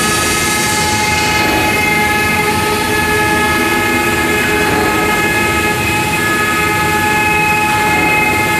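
Twin spindles of a CNC wood router cutting a carved relief pattern into wooden panels: a steady high whine of several tones over a continuous rushing cutting noise.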